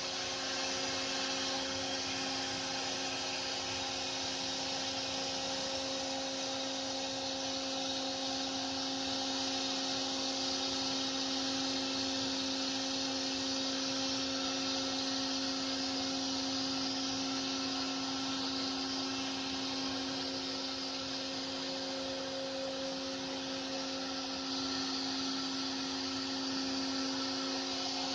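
CNC cutting machine running steadily: a constant motor whine of a few held tones over a bright hiss, without change in pitch or level.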